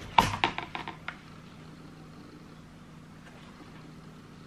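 A quick run of small clicks and rustles in the first second as a trainer is handled and lifted out of its box. After that only a steady low hum remains.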